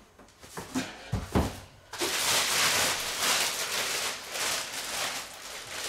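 A few knocks, then from about two seconds in, a thin plastic bag crinkling and rustling continuously as it is pulled and worked off a boxed portable power station.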